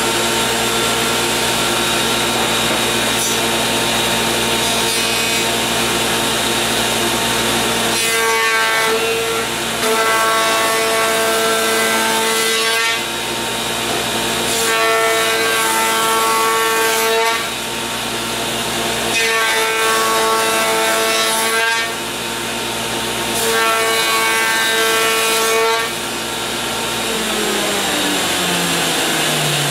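Woodworking machine spinning a large 3.5-inch diameter bit (a spindle shaper), with dust collection running, cutting the edges of walnut panels in four passes of a few seconds each, the whine rising during each cut. Near the end the machine is switched off and its pitch falls steadily as it winds down.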